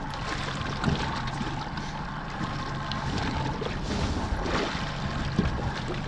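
Steady wind and water noise on a small fishing boat at sea, with a couple of faint knocks.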